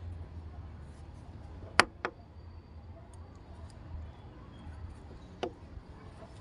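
A steel ladle clicking sharply as papad batter is spooned onto a plastic sheet: two clicks close together about two seconds in and one more about five and a half seconds in, over a low steady background rumble.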